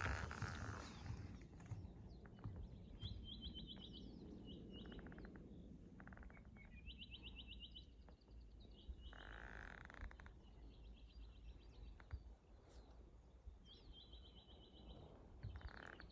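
Faint bird trills: short, rapid chirping runs, high-pitched, repeated about every two to four seconds over a faint low rumble of outdoor background noise.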